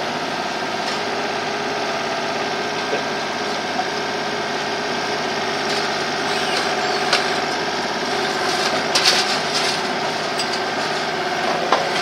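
Mini excavator engine running steadily, heard from the operator's seat, as the arm works. Several short metal clanks and rattles come from about six seconds on, the loudest cluster about nine seconds in, as the grapple handles debris and an air conditioner outdoor unit.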